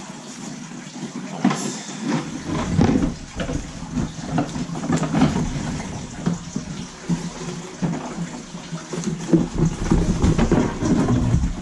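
A large cardboard toy box being opened and handled on a table: its end flap pulled open and the box shifted and tilted, giving a run of scrapes, knocks and rustles. Deeper thuds of handling join about two seconds in.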